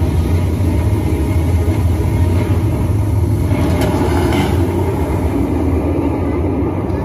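Loud, steady low rumble from the water-and-light show's soundtrack played over its loudspeakers.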